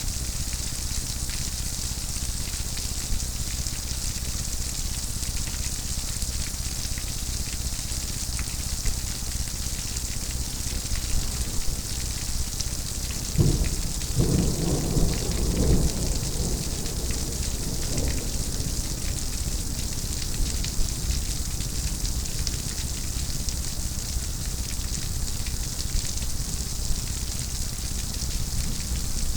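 Steady heavy rainfall hissing, with a roll of thunder breaking in about 13 seconds in and rumbling for a few seconds before fading back under the rain.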